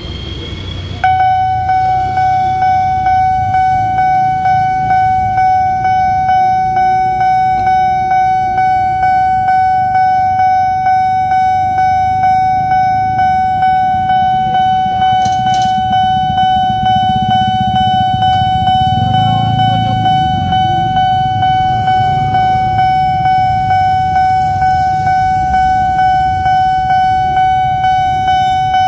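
Railway level-crossing warning alarm sounding at a fast tempo: a loud electronic tone that starts abruptly about a second in and pulses in quick, even repeats.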